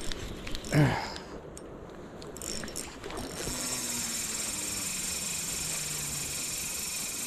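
Spinning fishing reel being cranked, a steady whirring that starts about three seconds in and runs on evenly, with a brief word or two of voice near the start.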